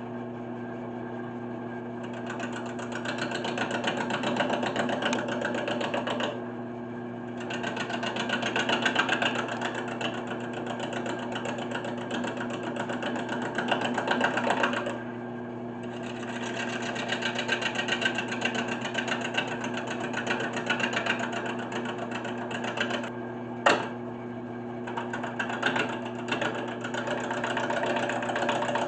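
1981 Delta 12-inch wood lathe running with a steady motor hum while a hand-held gouge cuts the spinning spalted maple slab in long passes, easing off briefly about six and fifteen seconds in. A sharp tick comes about two-thirds of the way through.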